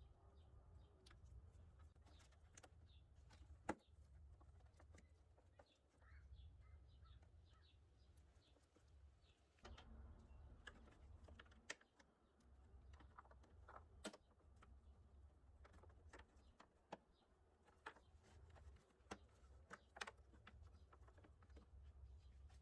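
Near silence with faint, scattered clicks and taps of plastic spark plug wire guides being unclipped and snapped into place on the engine, one sharper click about four seconds in.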